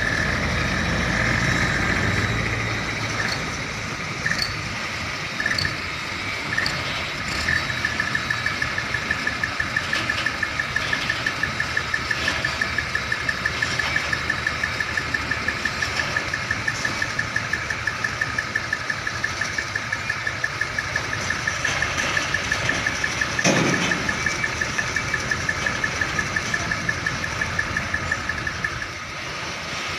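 Diesel container-truck engines idling, with a high, rapidly pulsing tone running through most of it. A short falling tone comes about two-thirds of the way in.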